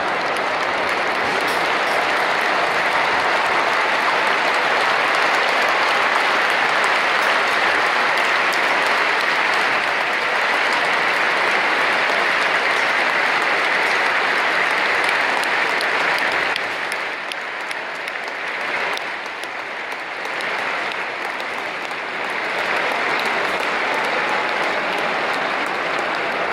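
Large stadium crowd applauding, a dense steady clatter of clapping that eases off for several seconds past the middle and then swells again near the end.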